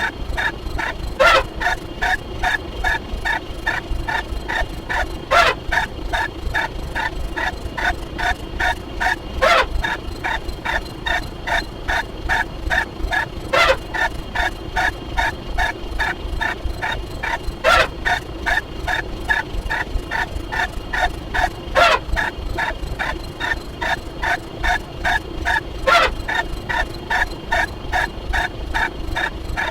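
A rapidly repeating sound effect: short, gobble-like animal calls come about three to four times a second. A louder one stands out roughly every four seconds.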